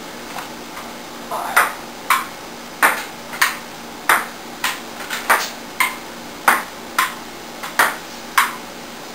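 Table tennis rally: the ball clicks off the paddles and bounces on the table, a sharp tick about every half second, starting about a second and a half in.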